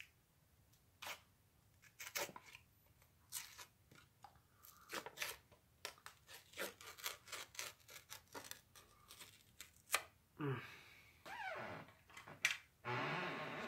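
Lid and paper seal being peeled off a pint of ice cream: a run of separate crackles, rips and rustles of paper and cardboard, followed near the end by a few short vocal sounds.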